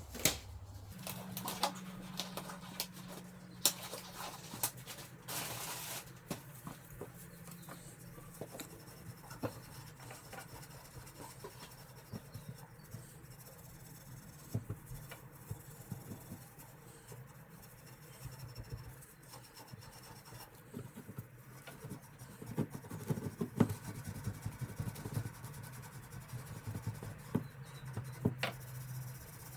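Scratching and rubbing as the end of a water pipe is scrubbed clean by hand after its old compression olive has been removed, made up of many small irregular scrapes, with a short harsher burst about five seconds in and busier scraping near the end.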